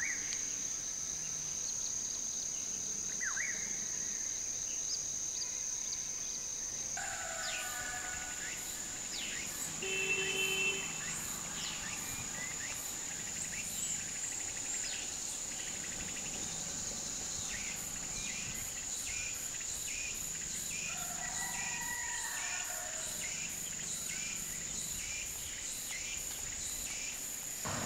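Outdoor waterside ambience: a steady, high-pitched insect drone with scattered bird calls. The drone shifts a little higher about seven seconds in.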